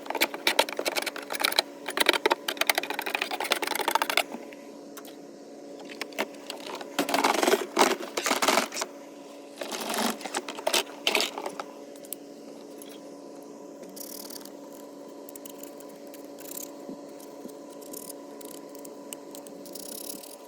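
Paint scraper scraping mineral buildup off the flat inner surfaces of a swamp cooler in quick repeated strokes for about four seconds, then in two shorter bouts. After that a faint steady hum is all that remains.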